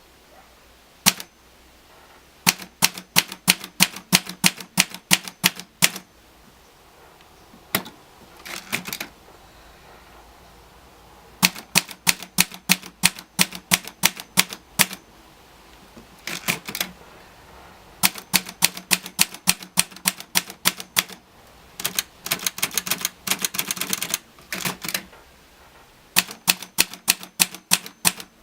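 Olivetti Lettera DL typewriter being typed on: runs of crisp key strikes, about four to six a second, broken by short pauses, with a faster flurry of strikes a little after the middle.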